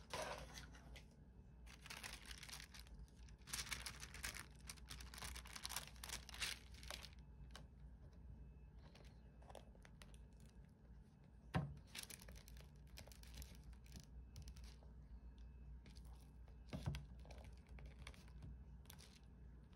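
Paper waffle wrapper crinkling and tearing as it is pulled back by hand, busiest for the first several seconds and then in fainter rustles. Two sharp knocks stand out, a little past halfway and again near the end.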